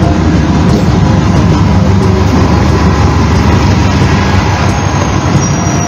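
Diesel locomotive engine running steadily while the train stands still, heard close up beside the locomotive, with a heavy low rumble.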